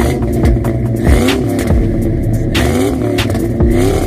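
Fourth-generation (SN95) Ford Mustang's engine revved through its exhaust in repeated blips, the pitch rising and falling several times, with sharp crackles between.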